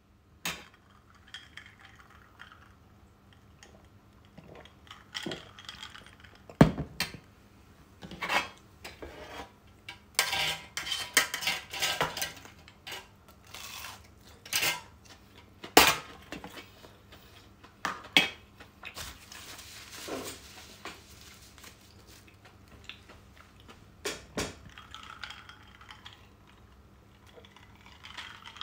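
Sharp clinks and knocks of tableware: a highball glass with ice being picked up and set down on a stainless-steel counter beside a metal tray with a wire rack. Single knocks come every few seconds, with a busy run of clinking about ten to twelve seconds in.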